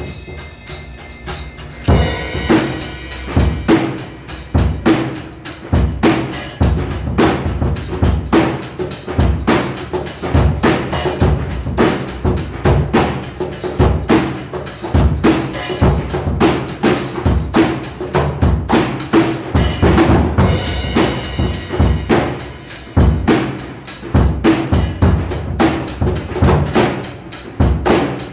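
Drum kit and cajon improvising together: bass drum, snare and cymbals in a dense, fast pattern with hand strikes on the cajon, the playing getting busier about two seconds in.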